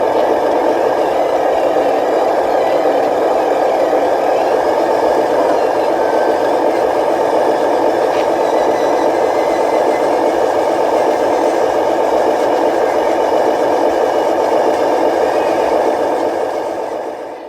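Radio-controlled model construction vehicle running steadily, a continuous motor and gear noise that fades out near the end.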